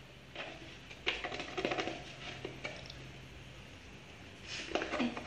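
Scattered clinks and knocks of kitchen utensils against an aluminium frying pan on a gas stove, with the loudest knock near the end.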